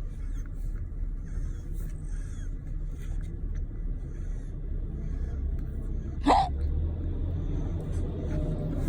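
A baby's single short, sharp hiccup about six seconds in, over a steady low rumble.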